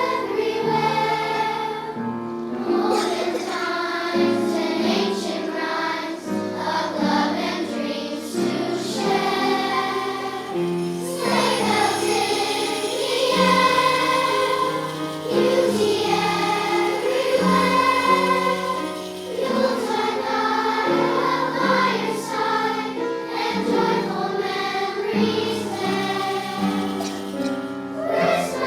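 Children's choir singing a song, one continuous sung passage with sustained notes.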